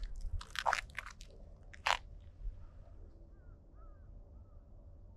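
Footsteps crunching on a dry forest trail: a handful of irregular steps in the first two seconds, then the walking stops.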